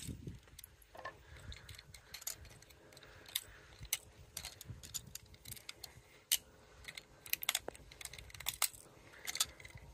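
Faint, scattered clicks and light knocks of plastic and metal: a broken-open plastic thermostatic radiator valve head being handled, with steel grips worked on the brass wax cartridge inside.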